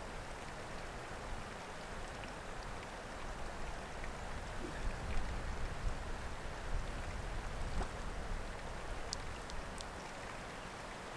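Wind blowing across the microphone: a steady hiss with uneven low rumbling gusts, and a few faint clicks near the end.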